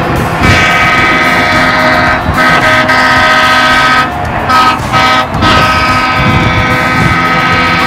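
Boat horns sounding long, loud blasts at several pitches at once, with short breaks about two, four and five seconds in.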